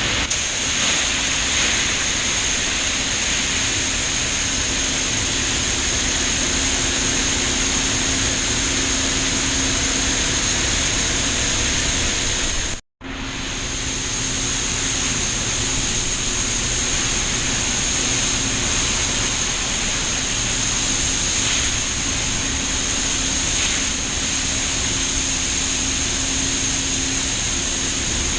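Farm tractor engine running steadily, with a steady high whine over a broad rushing noise and a low hum. The sound cuts out for a moment about halfway through.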